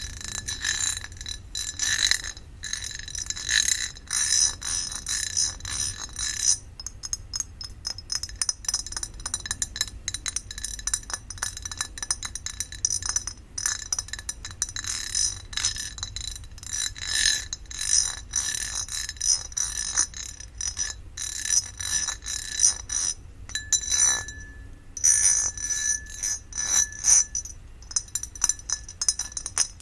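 Ribbed glass candle lid being rapidly tapped and scratched, a dense run of small clicks with the glass ringing at a few steady bell-like pitches.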